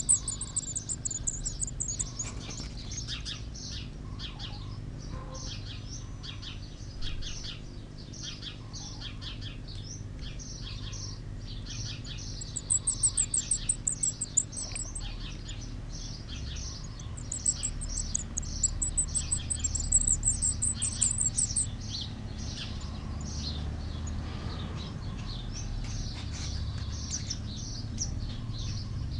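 Redstart nestlings begging: constant short, high cheeps, rising to louder runs of rapid, very high cheeping right at the start, about halfway through, and again a few seconds later.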